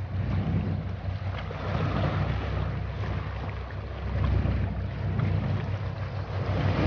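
Steady low drone of a boat engine, with wind buffeting the microphone.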